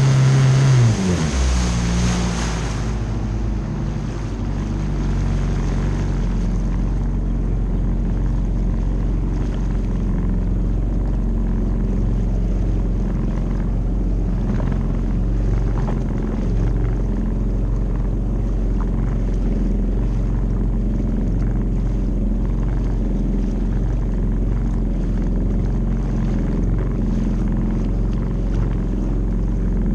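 Jet ski engine at speed with spray hissing, throttled off about a second in so its pitch drops. It settles into a low steady idle as the craft coasts and the spray fades.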